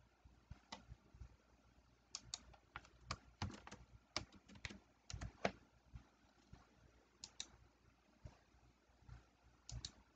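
Faint computer keyboard typing and mouse clicks: a quick run of keystrokes in the middle, with mouse clicks in close pairs before and after it.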